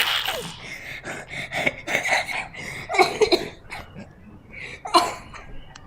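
A boy coughing again and again in short, sharp coughs, loudest about three seconds in and again near five seconds, with a baby's giggling between them.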